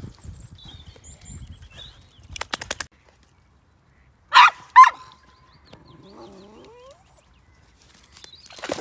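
A dog barks twice in quick succession, loud and short. A brief rattle of clicks comes a couple of seconds before it.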